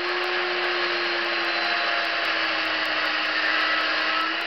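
Chainsaw running at high throttle while cutting into a wood block: a steady engine note over the rasp of the chain through the wood.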